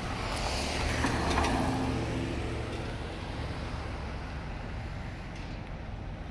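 A car passing along the street: its tyre and engine noise swells to a peak about a second in, then fades away, over a steady low rumble.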